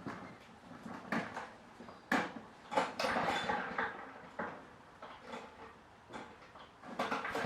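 A series of irregular knocks and clatters, some sharp and some softer, with no engine running.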